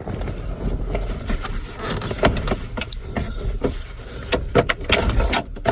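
Handling noise: scattered light clicks and knocks over a steady low rumble, most of them in the second half.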